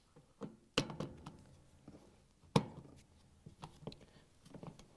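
Grey plastic dishwasher bracket being pushed onto the sheet-metal frame, with small knocks and rubbing. There are two sharp clicks, about a second in and a louder one about two and a half seconds in, as its tabs snap into their mounting spots.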